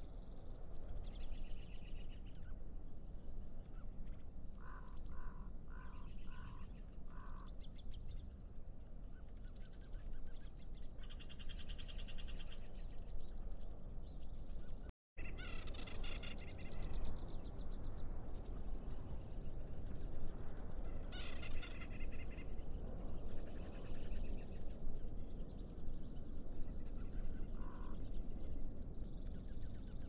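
Nature ambience: birds chirping and other animal calls coming and going over a steady low rush, with a quick run of five short, identical calls about five seconds in. The sound cuts out for an instant halfway through.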